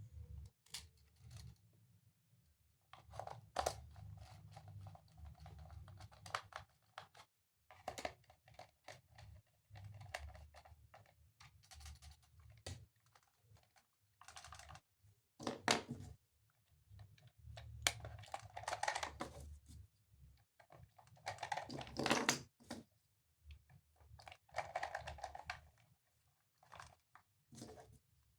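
Hands unboxing and handling a plastic toy train: irregular clicks, rustles and crinkles of plastic and packaging.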